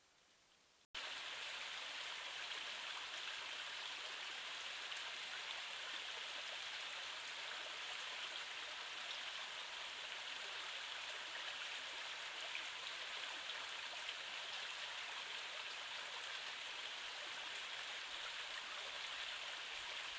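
Stream water running over stones, a steady rushing hiss that starts suddenly about a second in.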